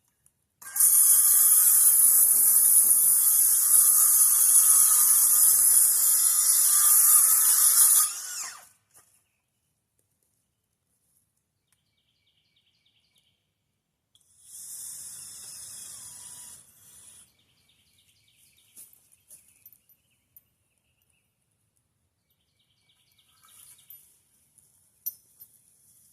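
Handheld power drill running in two steady bursts: a long one of about seven and a half seconds starting just under a second in, then a shorter, quieter one of about two and a half seconds near the middle.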